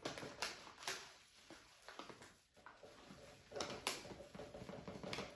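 Faint kitchen handling as quick-cooking rolled oats are added to a blender pitcher: a scattering of light clicks and taps with soft rustling, a few in the first second and more about four seconds in and near the end.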